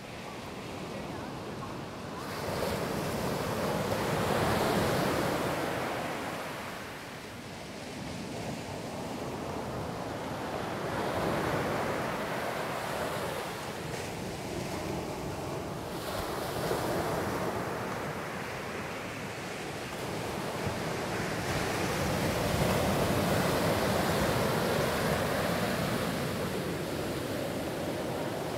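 Ocean surf breaking and washing up a sandy beach, a steady rush that swells and fades in surges several seconds apart.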